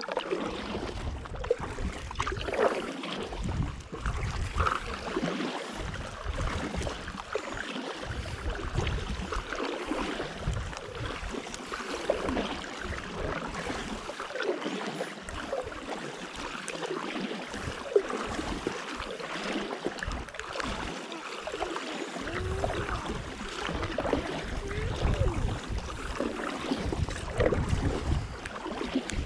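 A stand-up paddleboard paddle dipping and pulling through calm sea water, with water dripping and lapping around the board in light rain. Irregular low wind gusts rumble on the microphone.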